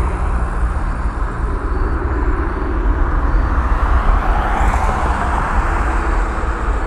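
Jet airliner's engines at takeoff thrust: a steady jet roar with a low rumble that swells and rises in pitch as the plane rotates and lifts off about four seconds in.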